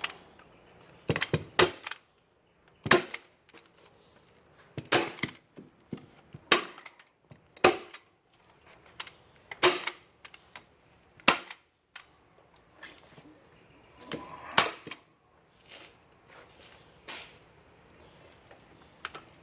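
A series of sharp, irregular snaps and knocks, about a dozen, spaced one to two seconds apart, like hand-tool impacts.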